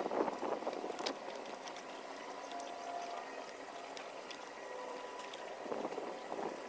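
Rustling and scraping of hands and a handheld camera moving around in a car's engine bay, with a few light clicks; the scraping is loudest right at the start and again near the end.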